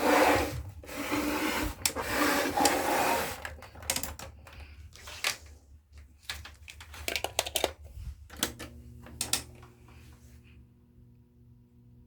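Handling of a 1986 Goldstar FD-362 electric fan: rubbing and scraping for the first few seconds, then a run of sharp clicks as its controls are worked. About eight seconds in, the fan's motor starts with a steady hum that carries on.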